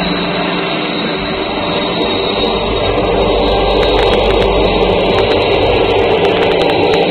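Norfolk Southern diesel locomotives running past with a heavy freight train, a steady engine drone that grows somewhat louder about halfway through as more units come by.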